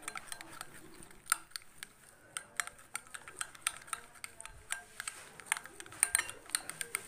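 Egg yolks being beaten by hand with a utensil in a plate: quick, irregular clicks and taps of the utensil against the plate, coming faster near the end.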